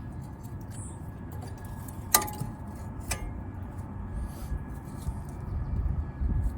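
Two sharp metallic clinks about a second apart, the first ringing briefly, as brake parts are handled and set down, then low rumbling handling noise near the end.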